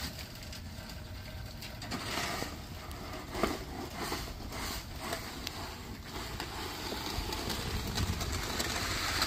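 Snow shovel being pushed across wet concrete, scraping up slush in a series of strokes, over a steady low rumble of outdoor noise.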